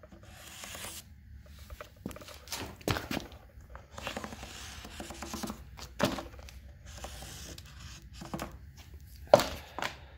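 Tracing around a tire onto a wood board: stretches of scratchy rubbing as the line is drawn, with scattered knocks and clicks from handling the tire and board, the loudest a sharp knock about nine seconds in.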